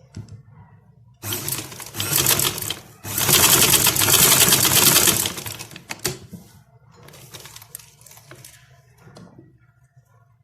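Sewing machine stitching in two runs, a shorter one starting about a second in and a longer, louder one straight after, then quieter sounds afterward.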